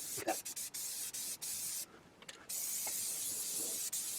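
Aerosol spray paint can hissing in short bursts, pausing for about half a second around two seconds in, then spraying steadily.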